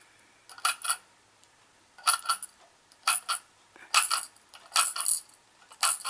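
Budgerigar tapping its beak against a hollow plastic maraca toy: short clicking taps, mostly in pairs, about once a second, as it 'feeds' the toy.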